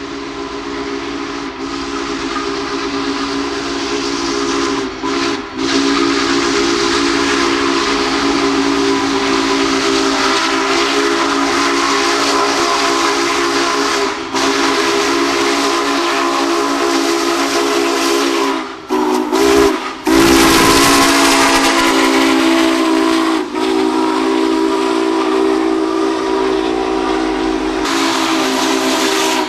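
Union Pacific Big Boy 4014's chime steam whistle blowing long, drawn-out blasts, several notes sounding together, with only a few brief breaks. It is sounding as the locomotive approaches the grade crossing.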